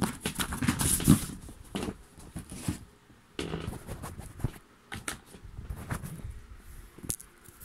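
Handling noise: a phone set down with a knock, then scraping, rubbing and sharp knocks of a cardboard firework box as its tight lid is worked off, the busiest stretch in the first second or so.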